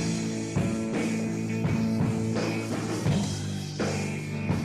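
Background rock music: steady guitar chords over a regular drum beat.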